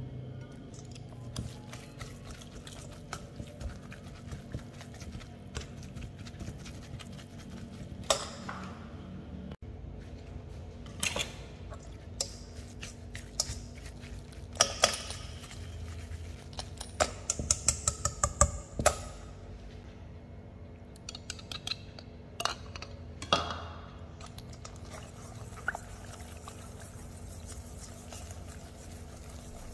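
Wire whisk clinking and scraping against a stainless steel bowl as it works thick cooked choux paste smooth, in irregular runs of quick clicks that are busiest in the middle.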